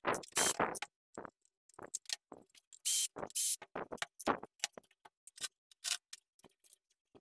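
Clicks and knocks of a sheet-metal power-supply case, screws and parts being handled as it is taken apart, with a cordless drill/driver whirring briefly about three seconds in.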